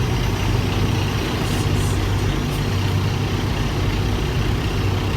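Semi truck's diesel engine running steadily at a low idle.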